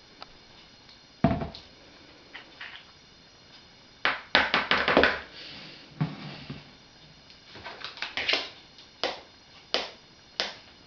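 Kitchen utensils and containers knocking and clinking while ingredients are measured and added to a mixing bowl. There is a sharp knock about a second in, a quick cluster of clatters around four to five seconds, then a few single clinks near the end.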